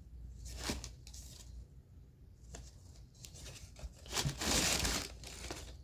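Packaging rustling and crinkling as it is handled, in several short bursts, the longest and loudest about four and a half seconds in.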